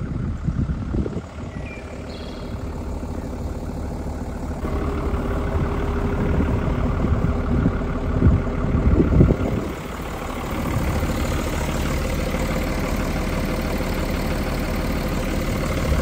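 Truck engine running steadily, heard from inside the cab; it gets louder about five seconds in.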